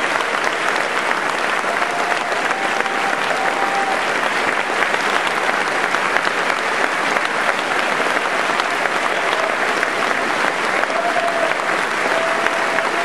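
Large crowd applauding steadily and without a break, the sustained ovation that follows the end of a speech.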